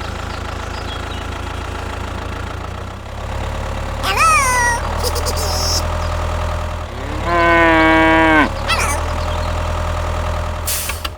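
A small engine or motor hums steadily and low. About four seconds in, a short high animal call falls in pitch. Around seven to eight seconds in, a long, level, moo-like call lasts about a second.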